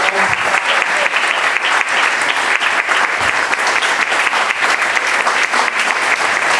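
Audience applauding a speech's closing line: dense, steady clapping from many people.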